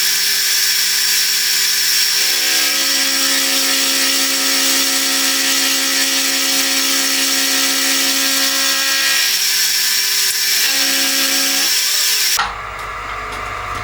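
Machine tool running and taking a cut off the face of a small hardened steel block: a steady, loud, hissing machining noise with a high whine and shifting lower tones. It drops away suddenly near the end as the cut finishes.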